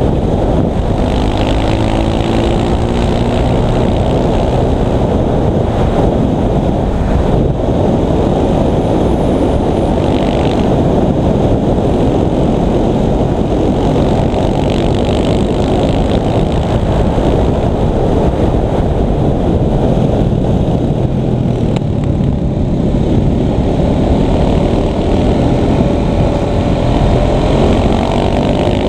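KTM 690 SMC's single-cylinder four-stroke engine running under way, heard from a helmet-mounted camera with heavy wind noise over the microphone. The revs climb and change near the start and again near the end.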